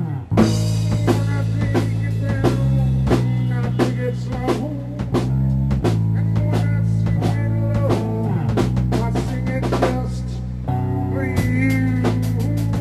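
Funk-rock band music: a drum kit playing a busy groove over steady electric bass notes, coming in with a loud hit about half a second in, with a melodic line bending in pitch above.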